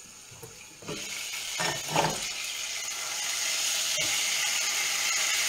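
Food sizzling in hot oil in a pan on the stove. The sizzle starts suddenly about a second in and grows louder, with a short clatter of the pan about two seconds in.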